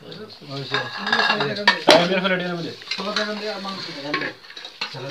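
Clinks and scrapes of a serving spoon against a steel pot and plates during a meal, with one sharp clink about two seconds in.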